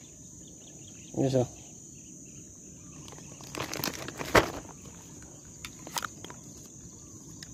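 Steady high-pitched chirring of insects from the grassy creek bank, with a few sharp clicks and knocks of fishing gear being handled around the middle.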